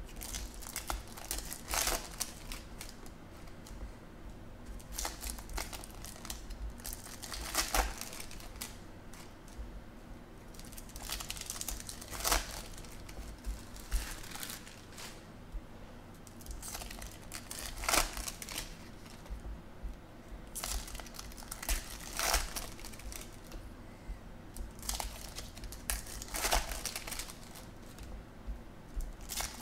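Plastic-foil wrappers of Topps Chrome baseball card packs crinkling and tearing open by hand, with trading cards being handled and flicked through, in short irregular bursts every second or two.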